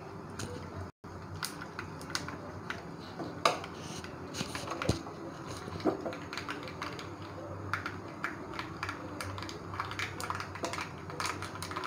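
Mustard seeds and cumin frying in hot oil in a small tempering pan, crackling and popping irregularly. The sound cuts out completely for a moment about a second in.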